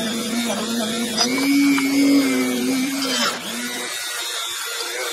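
Flexible-shaft rotary tool running at high speed with a steady whine, its pitch wavering as the small bit is worked along the grooves of a pair of tongue-and-groove pliers to scour out caked dirt. About four seconds in the low part of the hum drops away and a thinner whine carries on.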